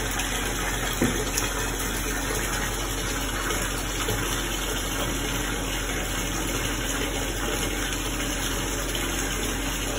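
Whirlpool bathtub jets running, with water churning and the jet pump humming steadily. A pink sugar bath bomb drops into the water with a small plop about a second in.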